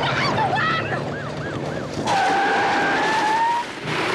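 A vehicle's tyres squeal in one long skid lasting about a second and a half, after a siren wails in quick rises and falls over a low engine hum.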